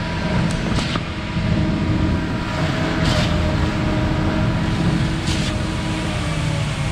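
Concrete boom pump truck running steadily, its engine held at raised RPM to drive the pump, with a short rushing surge about every two seconds.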